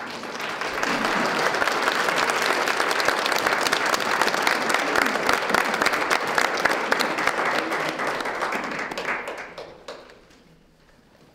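Audience applauding, a crowd of many hands clapping together; it swells over the first second and dies away about nine to ten seconds in.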